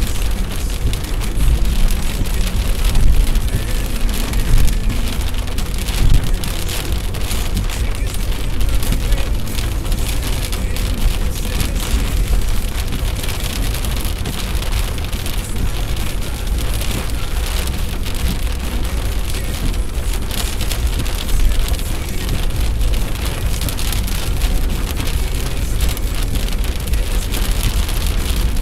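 Heavy rain pattering on a vehicle on the road, over a steady low rumble, with a few louder knocks in the first several seconds.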